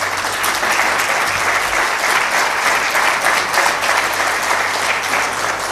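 Audience applause: many people clapping steadily in a dense patter.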